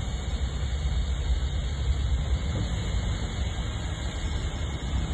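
Engine of a heavy construction machine running with a steady low rumble.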